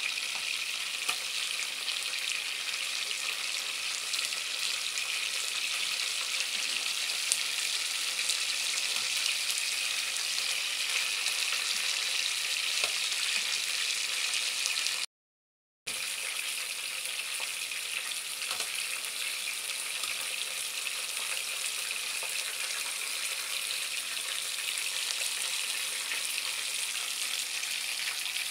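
Breaded chicken drumsticks sizzling as they shallow-fry in hot oil, a steady hiss that drops out for under a second about halfway through.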